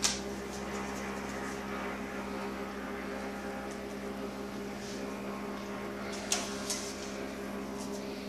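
Steady machine hum, one low tone with its overtones over a faint hiss, with two sharp clicks a little after six seconds in.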